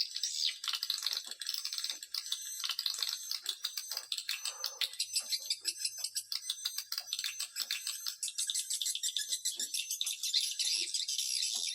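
Swiftlet calling-sound recording: a dense, rapid twittering and clicking of many swiftlets, all high-pitched and unbroken. It is a lure call of the kind played at swiftlet houses to draw the birds in to nest.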